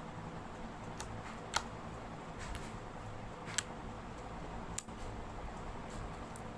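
Homemade slime being kneaded and squeezed by hand, giving a few short, sharp pops and clicks spaced irregularly over a faint steady hum.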